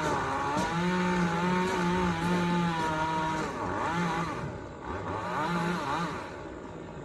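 Chainsaw engine running at high speed with a steady pitch. About halfway through the pitch wavers and the sound eases off.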